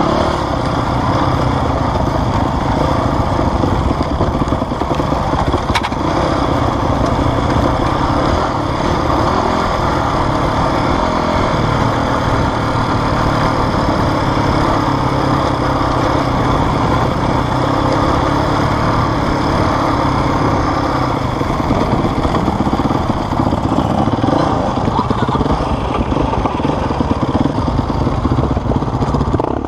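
Enduro motorcycle engine running steadily as the bike rides along a rough dirt trail, heard close up from a camera mounted on the bike itself.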